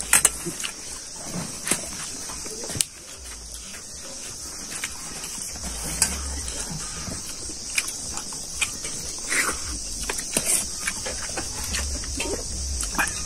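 Close eating sounds: chewing and lip-smacking, with scattered clicks of a spoon and fingers on steel plates, over a steady high buzz of insects.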